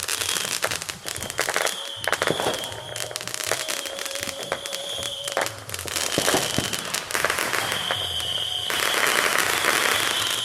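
Fireworks going off continuously: rapid popping and crackling with a steady high whistle running through it. The crackling thickens into a dense fizz about two-thirds of the way in.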